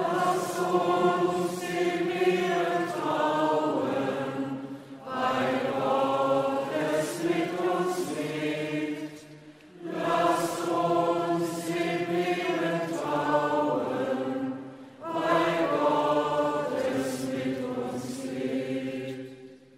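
Choir singing a slow, chant-like sung response to the intercessions, in four phrases of roughly four to five seconds each with short breaths between them.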